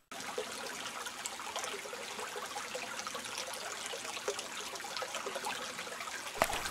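A small stream trickling and running steadily, an even watery hiss.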